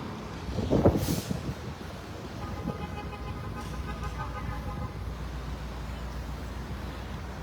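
Outdoor street background: a steady low rumble of vehicle engines. About a second in there is a brief louder sound, and midway a steady horn-like tone holds for about two seconds.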